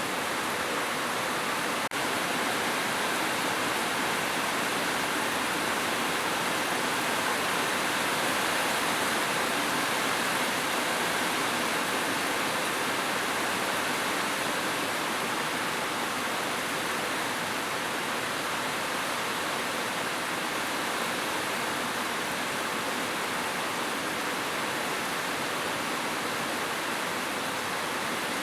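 Heavy rain falling steadily on a roof, a dense even hiss, with a brief dropout about two seconds in.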